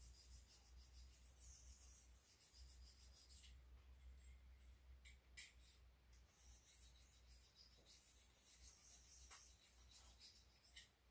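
Faint, light rubbing of a boning knife's steel edge on a handheld white Spyderco ceramic stone, small polishing strokes made with almost no pressure to hone the edge. A few light clicks where blade and stone touch.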